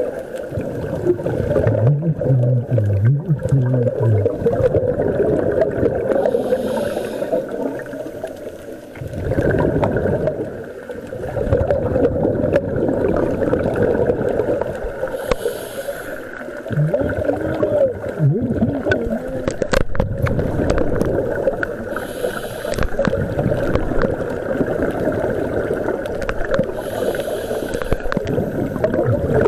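Scuba breathing recorded underwater: exhaled bubbles rumbling and gurgling past the microphone, with a short hiss from the regulator on an inhale every few seconds.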